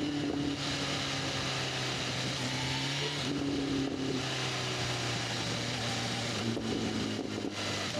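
BMW S1000RR's inline-four engine running on its stock exhaust while riding at a fairly steady pace, its pitch shifting slightly a few times.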